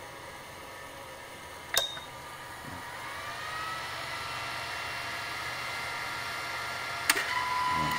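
Terumo TSCD II sterile tube welder starting a cycle: a click with a short beep about two seconds in, then a machine whine that rises in pitch and levels off over a low hum while the wafer heats, and another click near the end.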